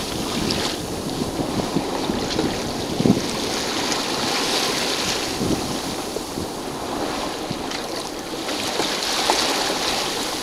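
Choppy water splashing and rushing along the hull of a sailing boat under way, with wind buffeting the microphone. The hiss swells and eases twice, with a brief thump about three seconds in.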